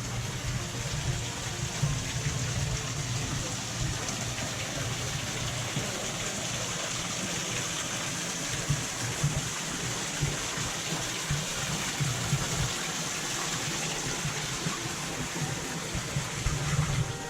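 Small waterfall pouring and splashing steadily into its pool.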